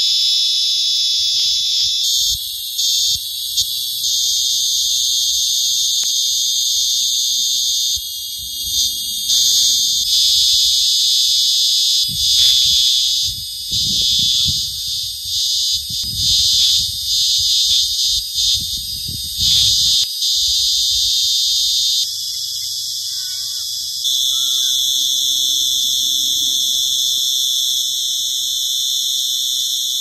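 Australian cicadas singing: a loud, continuous shrill buzz, shifting in tone a few times. Bursts of low rumble come through in the middle.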